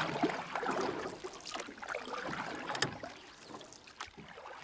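Water splashing and gurgling irregularly, with one sharp splash or knock about three seconds in.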